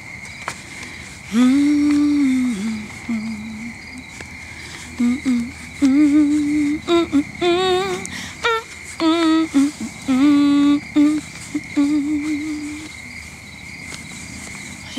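A woman humming the melody without words in short phrases, some held notes wavering with vibrato.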